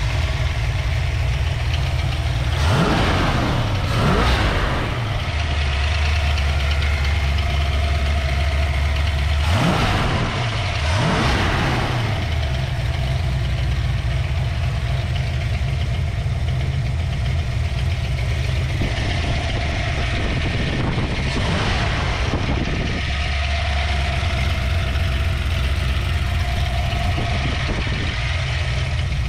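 Ford 351 Windsor V8 with headers idling with a steady low throb, revved up and back down a few times.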